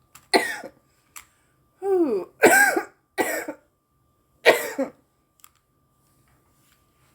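A woman coughing hard after a hit of a cannabis joint: about five harsh coughs in the first five seconds, with a falling "ooh" among them.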